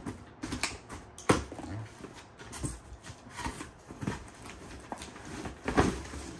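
Irregular knocks, taps and rustles of a cardboard shoebox being opened and handled as a pair of sneakers is unboxed, the sharpest knock a little over a second in and another near the end.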